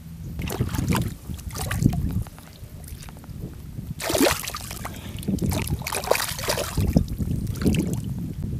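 A grouper splashing in shallow seawater as it is released from a lip grip, the splashing starting about four seconds in, with wind buffeting the microphone throughout.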